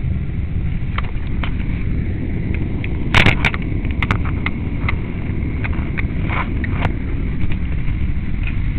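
Steady low rumble with scattered clicks and knocks, the loudest cluster a little over three seconds in, typical of a toy recording device being handled with its lens covered.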